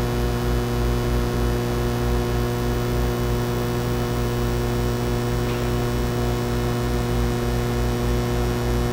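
Steady electrical mains hum: a low buzz made of several steady tones, with an uneven low flutter beneath it and nothing else heard.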